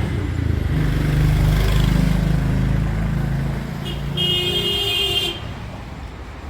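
A motor vehicle's engine passes close by and swells, then a vehicle horn honks once for about a second and cuts off.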